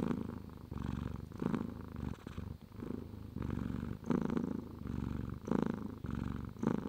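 A domestic cat purring close up, in even cycles of about a second as it breathes in and out.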